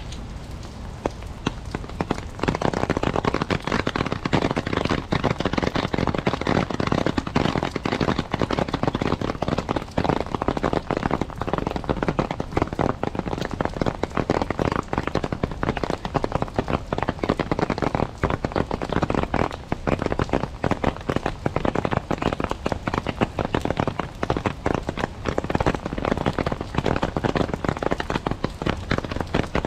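Rain pattering on a clear plastic umbrella close over the microphone, a dense, steady crackle of drop hits that gets much louder about two seconds in. Before that, softer rain falls on wet pavement.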